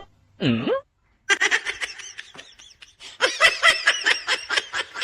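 A short voice-like sound that dips then rises in pitch, then from just over a second in, laughter in rapid repeated bursts.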